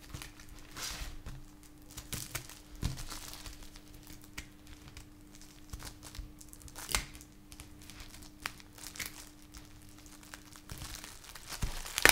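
Packaging of a pack of small firecrackers crinkling and tearing as it is handled and opened, in short irregular rustles, over a faint steady hum.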